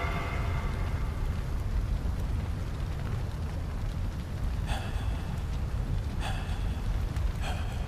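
Steady low rumble of a large fire burning, with three short, higher-pitched sounds over the second half, a second or so apart.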